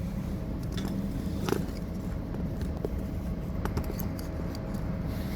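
Steady low background rumble with a faint steady hum, and a few light clicks.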